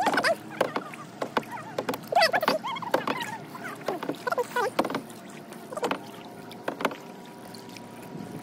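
Kayak paddle blades dipping into and pulling through lake water, with repeated short splashes and drips.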